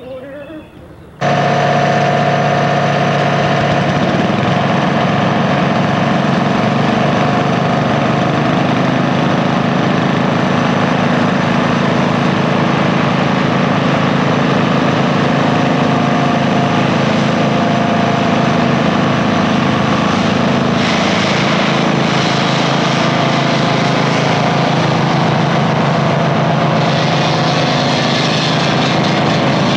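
Gas-powered core drill running steadily, with the truck-mounted slurry vacuum running alongside. The sound starts abruptly about a second in, and about two-thirds of the way through a hiss joins it.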